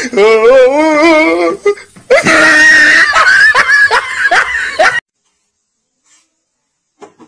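High-pitched wavering cries: a long quavering cry, then louder shrill cries from about two seconds in, cutting off suddenly about five seconds in.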